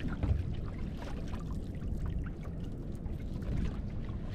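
Water sloshing around a small boat's hull, with a steady low rumble and scattered light clicks and knocks.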